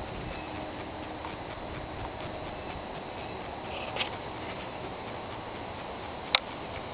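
Faint, steady outdoor background noise with faint insect calls, and one sharp click near the end.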